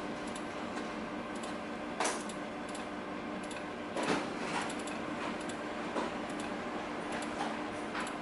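Computer mouse clicking at irregular intervals as letters are picked one by one on a DVR's on-screen keyboard, a few clicks louder than the rest, over a steady low hum.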